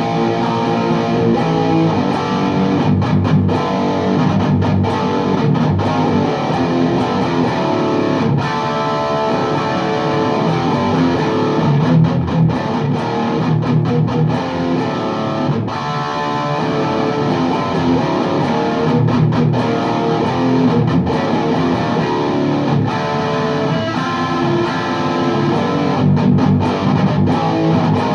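Distorted electric guitar from a Les Paul Custom played through a VHT Deliverance D60 tube amp with two KT88 power tubes and a 4x12 cabinet loaded with Vintage 30 speakers, riffing with high gain. The playing is continuous and stops briefly between some chords.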